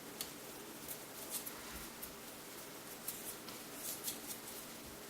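Old, crusty hinge tape being pulled off a large-format film holder: faint, scattered crackles and small ticks as the tape tears away.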